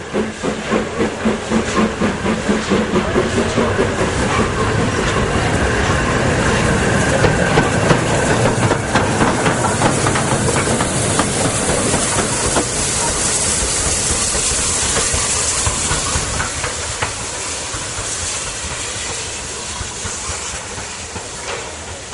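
Steam locomotive moving slowly past at close range: a rhythmic beat of about two to three a second for the first several seconds, giving way to a steady hiss of steam that slowly fades.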